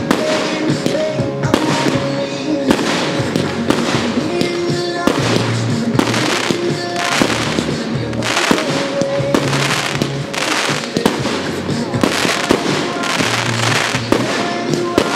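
Aerial firework shells bursting in quick, irregular succession, sometimes several bangs a second, over a song playing in the background.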